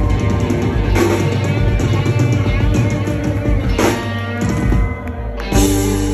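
Live rock band playing: electric guitars over a drum kit, with a few loud crashing hits and a short drop in level just before a final hit near the end.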